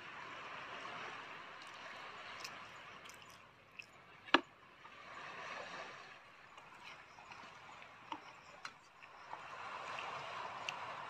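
Sea waves washing on the shore as a steady hiss that swells and eases, with scattered small clicks and one sharp knock about four seconds in.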